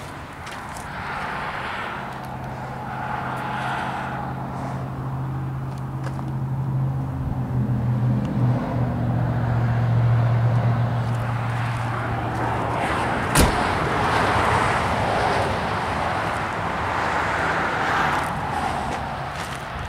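A motor vehicle running, with a steady low hum that stops about 12 seconds in, over constant outdoor noise. There is a single sharp knock a little after 13 seconds.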